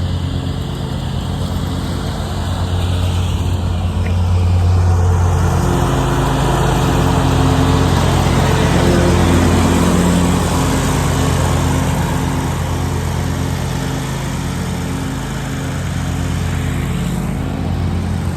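Scag zero-turn mower's engine running at mowing speed with the blades engaged, growing louder as it comes near, loudest about halfway through, then easing off as it moves away.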